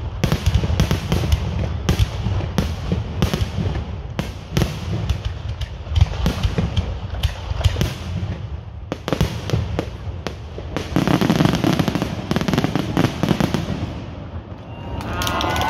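Fireworks finale: a rapid, continuous barrage of bangs and crackles over a low rumble, easing off near the end.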